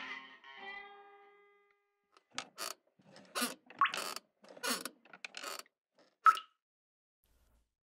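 Guitar music fading out, then a clock sound effect ticking about once a second for a few seconds, the last tick the loudest.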